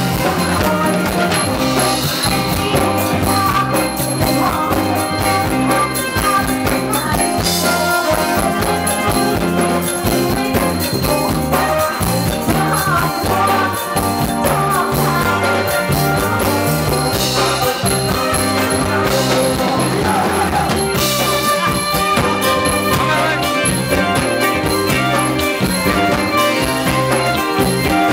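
Live band playing Thai ramwong dance music with a steady beat.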